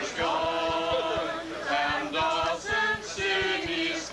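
A group of people singing a song together, several voices holding notes at once, with no instruments audible.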